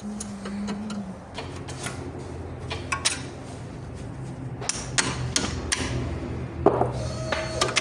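Metal tools striking and clinking against metal parts: a string of sharp knocks and clinks, a few of them ringing, over a steady low hum. This is work on the front shock absorber being changed.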